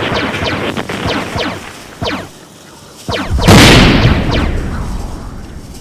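Rapid laser-blast sound effects: quick zaps that each fall in pitch, several a second. About three seconds in comes one loud explosion that dies away over a couple of seconds.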